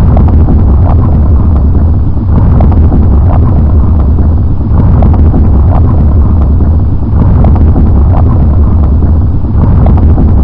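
Loud, steady low rumble and rushing noise with faint irregular clicks through it.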